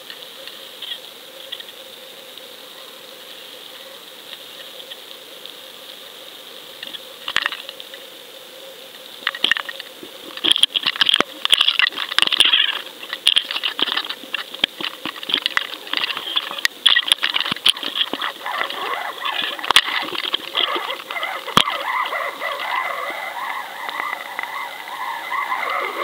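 Muffled clicking and crackling picked up by an underwater camera on a fishing line, sparse and quiet at first, then dense and irregular from about ten seconds in as fish swarm and hit the lures.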